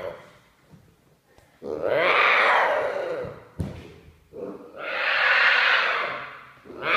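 Tiger cub calling: three long, rough, drawn-out calls, each lasting more than a second, with a single sharp knock between the first two.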